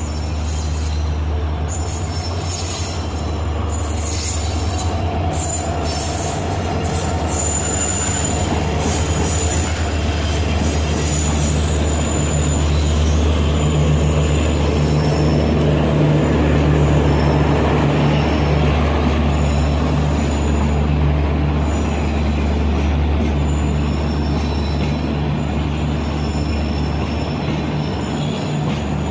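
EMD WDG-4 diesel locomotive's two-stroke engine running with a steady low drone as it hauls a passenger train slowly past, with the rumble of the coaches on the rails and short high wheel squeals, mostly in the first several seconds.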